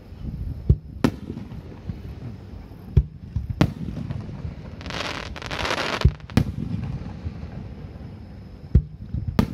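Aerial firework shells bursting overhead with repeated sharp bangs, about eight in all, over a low rumble. About five seconds in comes a second-long dense crackle.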